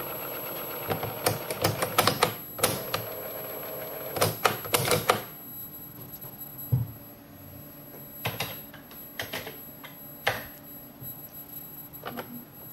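DR 1535 datasette motor running steadily while rewinding a cassette, with clicks, until it stops about five seconds in; after that, scattered single keystrokes on the Commodore 64 keyboard.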